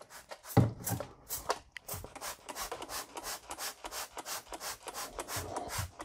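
Hand trigger spray bottle squirting liquid cleaner onto the metal plates of an electronic air cleaner cell, in quick repeated sprays of about two or three a second.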